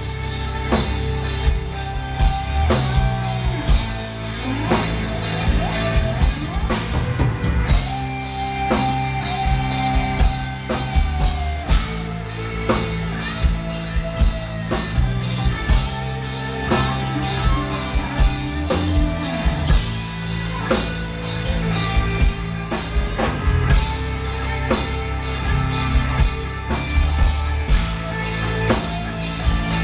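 Gothic metal band playing live: a driving drum kit beat under guitars, with a few held melodic notes, heard from the audience.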